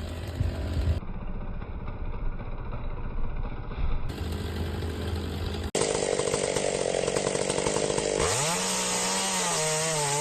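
Two-stroke chainsaw running and cutting wood, heard in several short clips joined with abrupt cuts. About eight seconds in, the engine revs up to full throttle and holds a high, steady whine.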